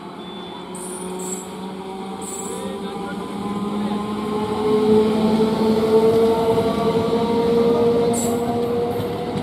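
ICF-built electric multiple unit (EMU) train passing close by, a steady hum and rumble of the motors and wheels that grows louder as the coaches go past, loudest in the second half, with a few brief hisses.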